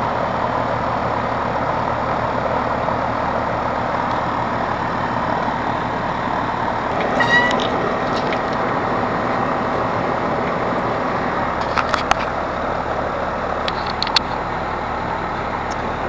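Air conditioner condensing unit's fan running steadily with a whooshing air noise, and a few sharp clicks about seven, twelve and fourteen seconds in as gauge hoses are fitted to the service valves. The compressor is running but too quiet to pick out over the fan.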